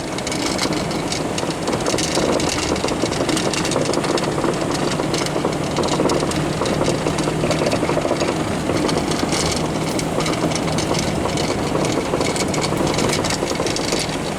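A motor vehicle's engine running steadily: a constant low hum under dense, rattling noise.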